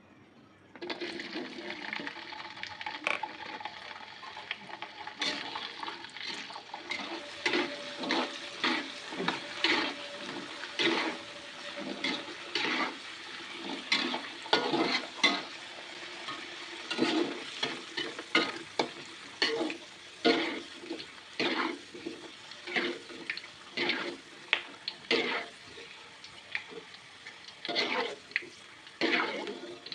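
Food sizzling in a frying pan while a spatula stirs and scrapes it, in quick repeated strokes. The sizzling starts abruptly about a second in.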